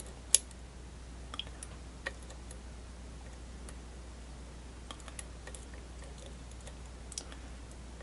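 Lock pick ticking and scraping against the pins of a brass Euro half-cylinder under tension: scattered light clicks, the sharpest about a third of a second in. The plug is sitting in a deep false set while the pins are worked.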